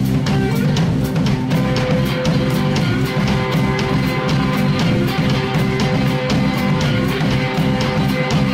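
A live band plays electric guitars and a drum kit, with cymbals struck in a fast, steady beat under held guitar notes.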